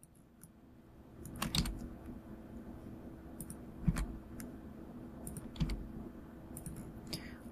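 Computer keyboard keystrokes and mouse clicks, a scattered series of short taps, over a faint steady hum.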